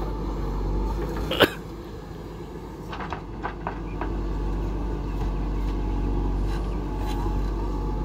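Diesel engine of a JCB 3DX backhoe loader running steadily as it works its hydraulic bucket. There is one sharp knock about a second and a half in, and a few lighter clicks around three seconds.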